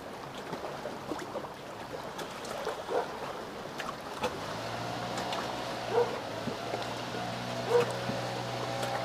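Choppy lake water lapping against a wooden dock, with a few short, sharp sounds scattered through. About halfway in, a steady low hum sets in and holds.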